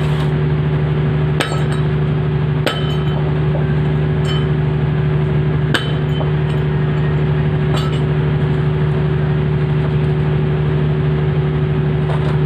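A steady, loud machine hum carries on without a break. Over it come a handful of sharp metallic clinks, about four in all, spread a second or more apart.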